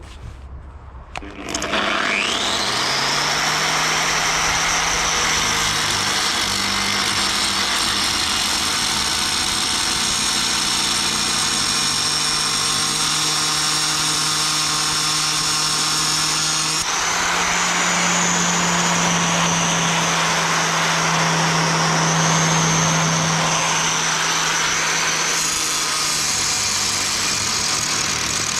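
Angle grinder starting up with a quickly rising whine, then running steadily as its disc cuts through a rusted bolt; the grinding turns harsher and louder for several seconds past the middle.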